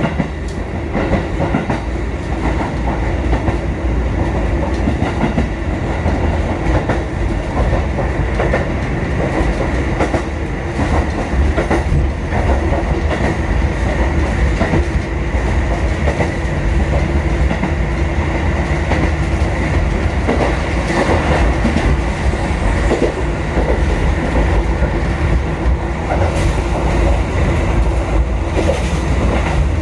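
Kotoden 1080-series electric train running between stations, heard from inside the front car. A steady rumble, with the clickety-clack of the wheels over rail joints.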